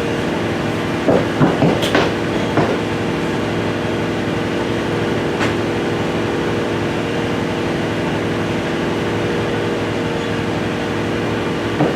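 Husky 30-gallon electric air compressor running with a steady hum, with a few knocks and clanks about a second in.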